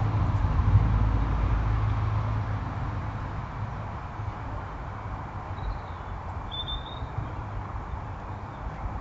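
Low engine rumble of a passing vehicle, fading away over the first few seconds, over steady outdoor hiss. A short, high bird chirp comes about six to seven seconds in.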